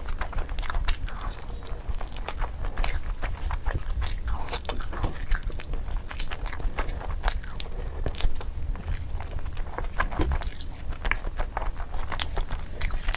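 Close-miked eating sounds: chewing and lip-smacking on mouthfuls of biryani eaten by hand, a dense, unbroken run of short clicks and smacks over a low steady rumble.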